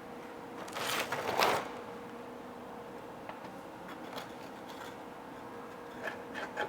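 A welding machine's ground clamp is fixed to the metal welding table, making a brief clattering scrape about a second in, over a steady hum. A few light clicks come near the end.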